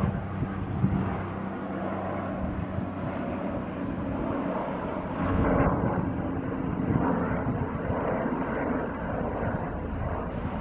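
Helicopter flying overhead at height, its engine and rotors giving a steady distant drone.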